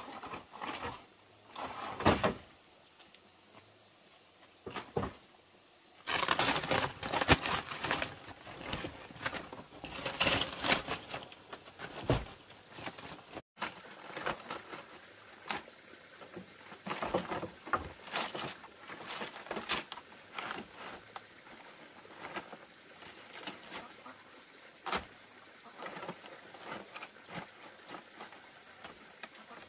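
Bamboo being handled: irregular hollow knocks, clatters and scrapes as a split-bamboo gutter is lifted and fitted into place, with a dense stretch of rustling and knocking about six seconds in. A steady high insect trill runs underneath.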